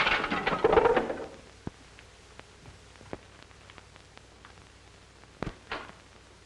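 A door being opened: a loud rattle lasting about a second, then a few faint scattered knocks and a sharper pair of knocks near the end.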